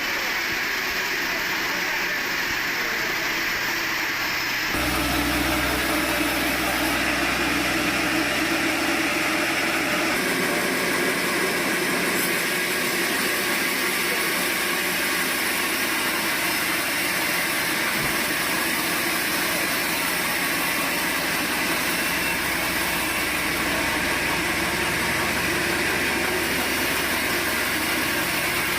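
Sawmill machinery running steadily. About five seconds in, the sound changes abruptly and a low hum joins it.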